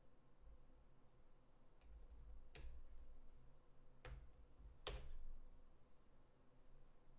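A few separate computer keyboard keystrokes, with the three loudest about two and a half, four and five seconds in, over a faint low hum.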